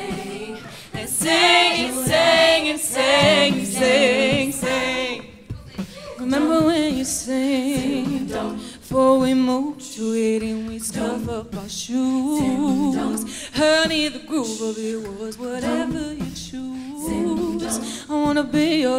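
All-female a cappella group singing: a solo voice with strong vibrato over the group's held vocal harmonies.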